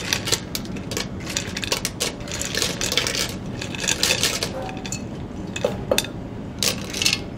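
Raw mussels in their shells clattering and clinking against each other and a glass bowl as they are tipped into a pot of tomato sauce, a dense run of clicks with a few sharper knocks as the last ones are shaken out.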